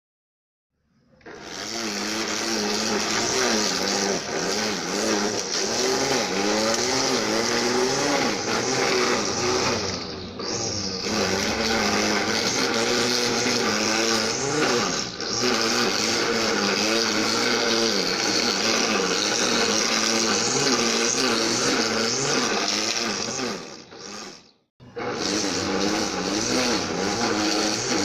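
Lawn mower engine running, its pitch wavering up and down as it works. It starts about a second in, and near the end it cuts out briefly and comes back.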